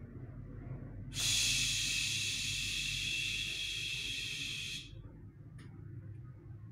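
A person making one long, steady hiss through the mouth, starting about a second in and stopping sharply nearly four seconds later, given as the 'magic' cue for a trick.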